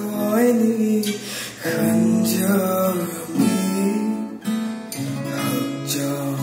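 Two acoustic guitars playing chords while a man sings a slow melody over them.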